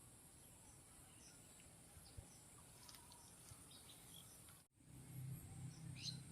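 Faint outdoor ambience with scattered faint bird chirps. About three-quarters of the way through, the sound drops out for a moment, and a low steady rumble comes in after it.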